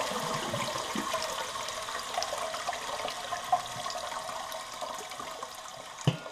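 Toilet tank fill valve running, water hissing into the tank and slowly getting quieter. A single light click near the end.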